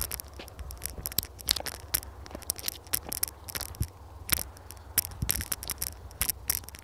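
Irregular clicks and scrapes of footsteps on stony ground, with a metal chain leash rattling, over a low rumble.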